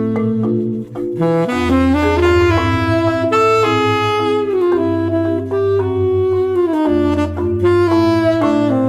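Instrumental music: a gliding lead melody line over long-held bass notes, with the bass changing about a second and a half in and again near seven seconds.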